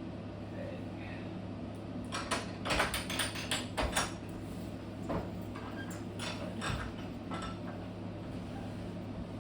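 Floor loom clattering and clicking in a quick run, then a few single clicks, as the warp is wound forward. A steady low hum lies underneath.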